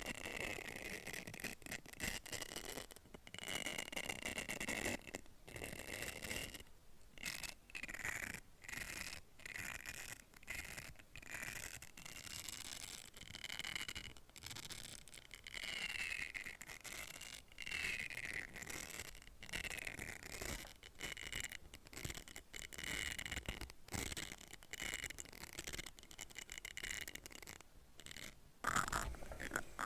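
A tool rubbed steadily against a hollow capsule, giving a continuous squeaky scraping with a high tone that wavers up and down in pitch, broken again and again by short pauses.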